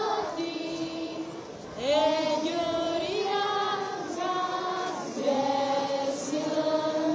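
A group of women singing together, a slow song of long held notes in phrases with short breaks between them.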